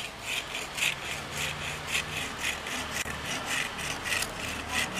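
Hacksaw cutting a notch into the end of a thin wooden arrow shaft, in quick, even back-and-forth strokes, about three a second.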